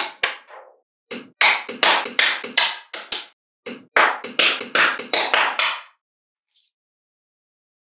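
Small magnetic balls clicking and clacking as they snap together and are set in place, in quick runs of sharp clicks that stop about six seconds in.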